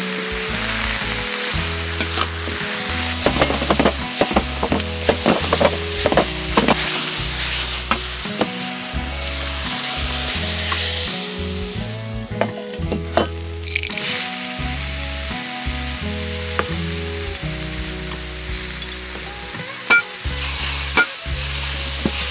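Food sizzling in a wok over a wood fire as it is stir-fried, with a metal spatula scraping and clanking against the pan. The clanks are densest a few seconds in. The sizzle drops away for about two seconds around the middle, then comes back. Background music with a low bass line plays underneath.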